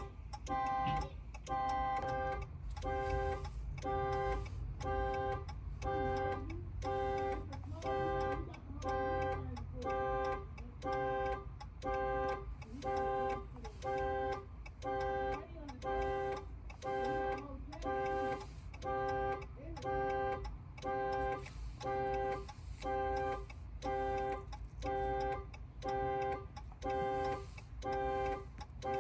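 Car's dual-tone horn sounding over and over in the anti-theft alarm pattern, about one honk a second, each honk the same chord: the factory alarm has tripped.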